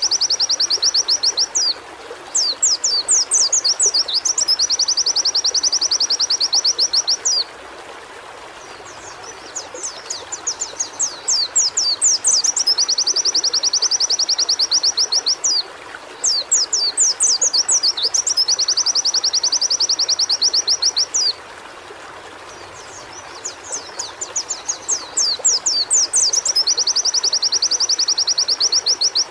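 White-eye (pleci) singing in repeated bouts: each begins with a run of quick, sweeping chips and breaks into a long, rapid, high trill lasting several seconds, with short pauses between bouts. A steady rush of flowing water runs underneath.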